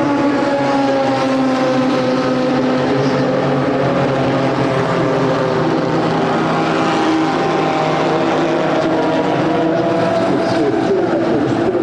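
Several racing car engines running together as a pack goes by on the opening lap. The overlapping engine notes slowly fall in pitch, then rise again in the second half.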